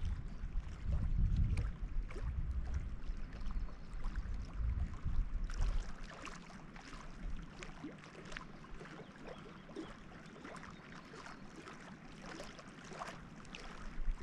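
Small waves lapping against a granite lake shore, with many irregular little splashes and clicks of water on rock. A low wind rumble on the microphone covers the first five seconds or so, then dies away, leaving the lapping clearer.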